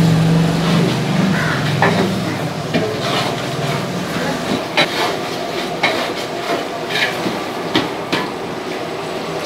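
Long metal spatula scraping and clacking against the side of a large aluminium cooking pot while stirring soy chunks in wet masala, with about six sharp knocks spaced roughly a second apart, over a steady background roar.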